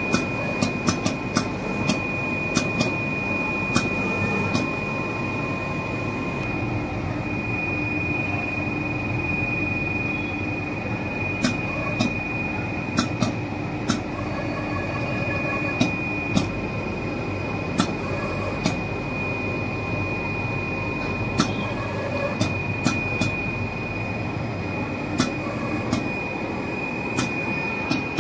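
Richpeace automatic single-ply cutting machine running: a steady mechanical whirr with a constant high whine, punctuated by frequent, irregular sharp clicks.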